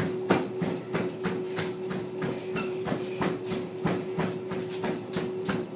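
Running footfalls thudding on a treadmill belt at about three steps a second, over the steady hum of the treadmill motor set to 5 mph.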